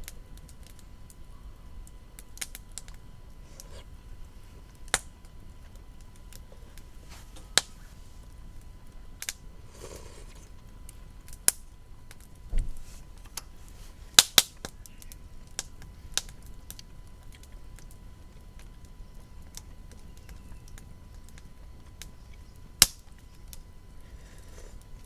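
Wood fire crackling: irregular sharp pops and snaps, with the loudest cracks about 14 and 23 seconds in.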